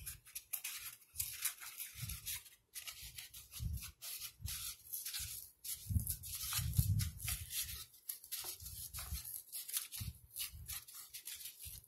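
A pressed-paper egg carton being torn apart by hand: irregular ripping and crackling, with low bumps from handling the carton about six to seven seconds in.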